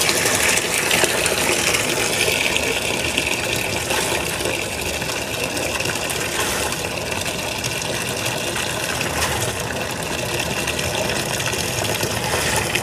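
Water gushing steadily from a top-loading washing machine's fill inlet into the drum as the tub fills, splashing onto the water already in it. A detergent cap is held in the falling stream.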